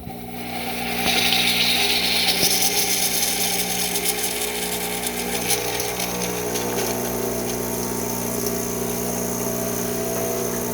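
Rancilio Silvia espresso machine running a cooling flush: its vibratory pump hums steadily as water is pushed through the group head after steaming. A loud hiss of spurting water and steam comes about a second in, then the flow settles to a steady pump hum.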